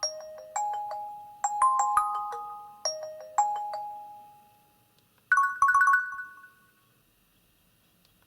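Nokia 2720 Flip's speaker playing a ringtone: a melody of short pitched notes that ring out and fade, dying away about four and a half seconds in. About a second later comes a brief run of quicker, higher notes.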